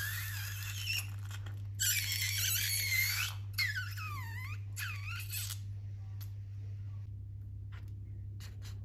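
Rubber balloons squealing in several bouts of high, wavering squeals that glide downward, stopping about five and a half seconds in. A steady low hum runs underneath.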